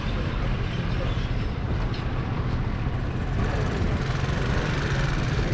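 Busy street traffic: vehicle engines running nearby in slow traffic, a steady low hum that grows a little stronger about three and a half seconds in.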